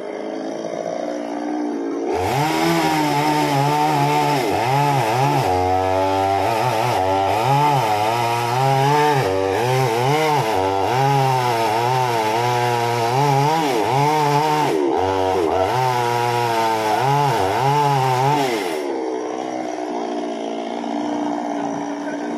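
Petrol chainsaw cutting through a tree trunk, its engine pitch rising and falling as the chain bites into the wood. It comes in loud about two seconds in and drops back to a lower level near the end.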